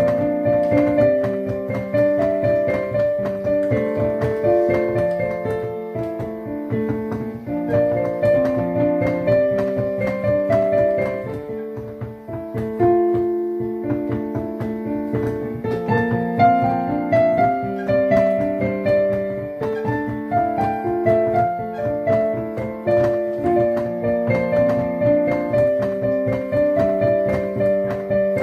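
Piano being played solo: a continuous melody over sustained chords, with notes struck several times a second and no pauses.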